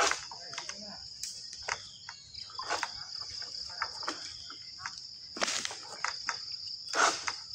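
A steady high insect chorus, crossed by irregular sharp knocks and scrapes as a long-handled harvesting sickle (egrek) works at the crown of an oil palm.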